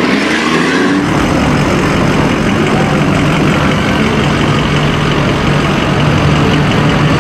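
Large pickup truck's engine running close by in slow street traffic, a steady low engine note over general traffic noise, rising in pitch in the first second before settling.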